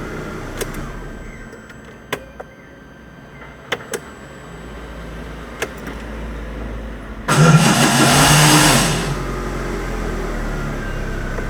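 A few sharp clicks, then about seven seconds in the Chevrolet Corsa's starter motor cranks the engine with a loud, harsh grinding for about two seconds before the engine catches and settles into a steady idle. The grinding is the starter-motor fault the owner is about to repair.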